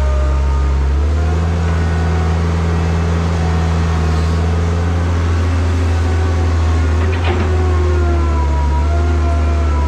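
Heavy diesel engine running steadily, its pitch drifting slightly up and down, with a brief knock about seven seconds in.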